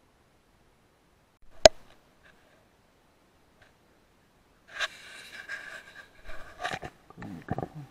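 Mostly quiet, with one sharp click about a second and a half in. Near the end come about three seconds of close, uneven handling noise.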